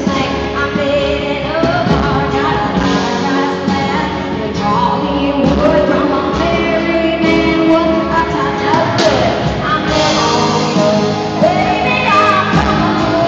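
Live country band playing with women singing the lead vocal.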